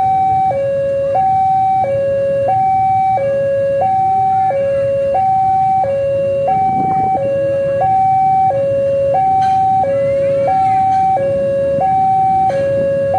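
Railway level-crossing alarm sounding its two-tone electronic warning, a low and a slightly higher note alternating evenly about every two-thirds of a second, signalling an approaching train.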